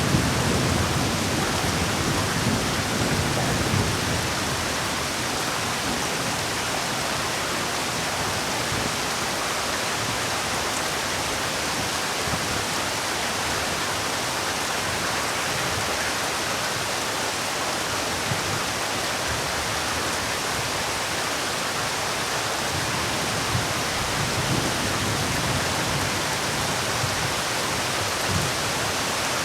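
Heavy rain falling in a steady, dense hiss, with a few low swells near the start and again near the end.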